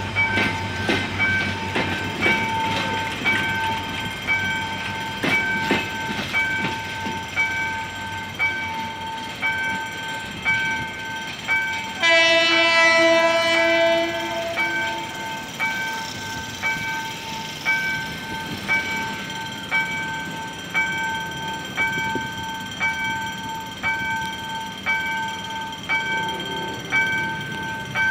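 Passenger train pulling away behind a GM GT-22-CW diesel locomotive, wheels clicking over the rail joints during the first several seconds. About halfway through, the locomotive's horn sounds once, a single held blast of about two and a half seconds and the loudest thing here. A warning chime pulses about every two-thirds of a second throughout.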